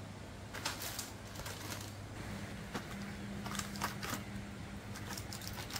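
Irregular clicks and crinkles of plastic medicine packets and ampoules being handled and sorted in a clear plastic box.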